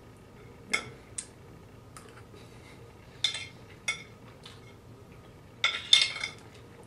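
Metal spoon clinking and scraping against a porcelain plate as food is scooped off it: several separate short strokes, with the loudest cluster near the end.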